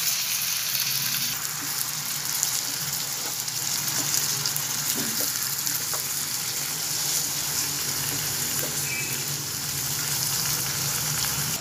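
Cubed pork frying in a nonstick pan with onion and garlic, giving a steady sizzle that turns wet and bubbly as the meat simmers in the juices it has released. A wooden spatula stirs it now and then.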